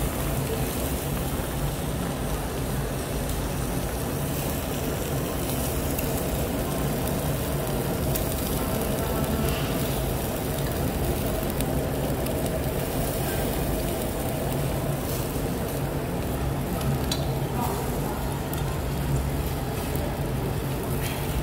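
Intestines sizzling steadily on a wire grill over charcoal, with a few light clicks of tongs and scissors against the grill, over a steady low hum.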